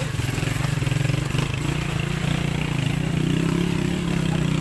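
Motorcycle engine running steadily, its pitch wavering slightly up and down.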